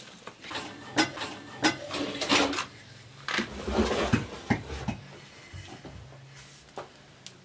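Dry brushwood rustling and snapping as it is handled and pushed into a clay pit oven, with a match struck to light it. There are sharp clicks and knocks through the first five seconds, then it goes quieter, with one more click near the end.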